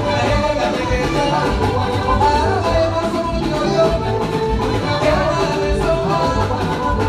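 Live band music with singing and a steady dance beat, played loud through a PA system.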